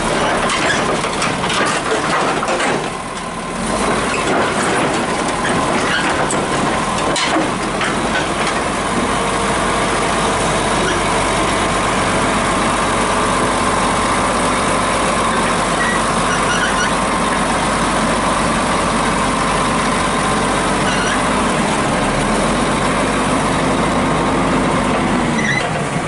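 Komatsu crawler bulldozer's diesel engine running steadily at close range. In the first several seconds, sharp knocks and clanks of the steel tracks and blade come through, with a brief dip in the engine sound about three seconds in.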